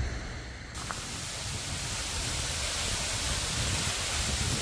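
Steady rushing of water, coming in suddenly about a second in and growing a little louder.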